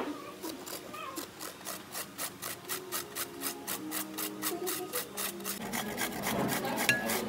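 Kalabasa squash, and then carrot, rubbed on a stainless steel box grater: a rhythmic rasping of about four grating strokes a second.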